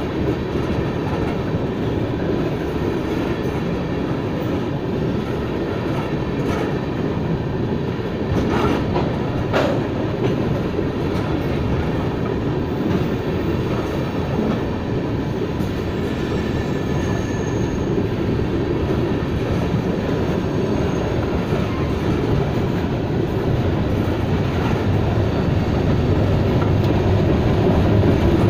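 Freight cars rolling past close by: a steady rumble of steel wheels on rail with some clicks, a few sharp knocks about a third of the way in and a faint brief wheel squeal about halfway. The rumble grows louder near the end.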